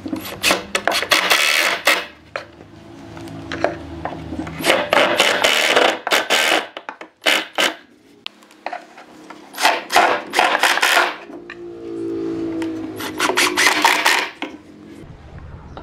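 Makita cordless impact driver driving screws into pine boards: about five bursts of rapid rattling hammering, each a second or two long, with short pauses between them.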